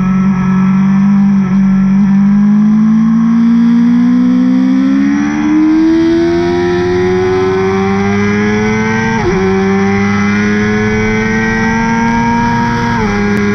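2017 BMW S1000RR inline-four with Akrapovic headers and can, heard from onboard, holding steady revs through a corner and then accelerating hard. The pitch climbs steadily, broken by two quick upshifts, one about two-thirds of the way in and one just before the end.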